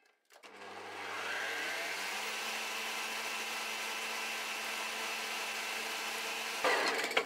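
Kenwood stand mixer's motor beating thick cake batter of creamed butter, sugar, eggs and sour cream with its flat beater. The hum starts about half a second in, builds up over the next second, runs steadily and stops near the end.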